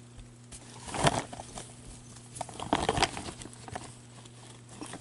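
Scattered clicks and rustling handling noises in two short clusters, about a second in and again around three seconds in, over a steady low electrical hum.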